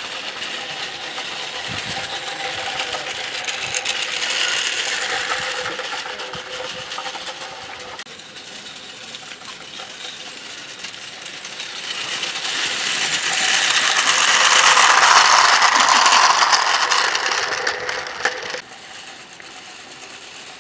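A 16mm-scale live-steam garden-railway locomotive running on 45mm track, a rapid clattering hiss of its steam exhaust and wheels on the rails. It grows louder as it comes close, loudest about two-thirds of the way through, then cuts off abruptly near the end.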